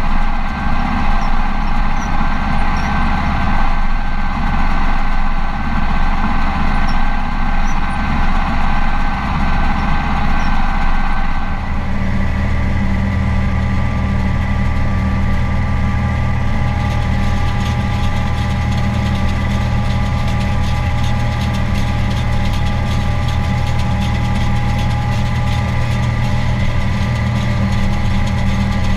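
Case 4240 Pro tractor engine running steadily under load while pulling a round baler, heard inside the cab. About twelve seconds in, the drone shifts to a stronger, steadier low hum.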